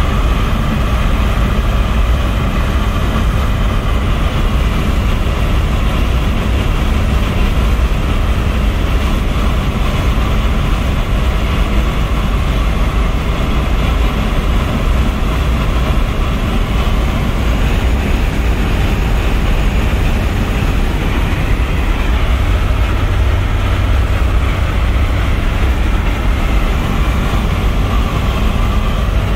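Cabin noise of a 1981 Volkswagen Rabbit Convertible cruising at about 80 mph: the four-cylinder engine drones steadily, with road and wind noise.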